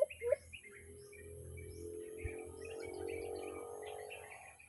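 Small birds chirping and twittering at a high pitch throughout, with two short low calls right at the start. Beneath them, a steady low drone swells from about a second in and fades out near the end.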